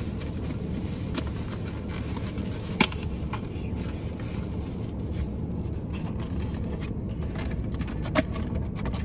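Steady low rumble inside a parked car, with scattered clicks and crinkles of takeout packaging being handled. The sharpest clicks come about three seconds in and again near the end.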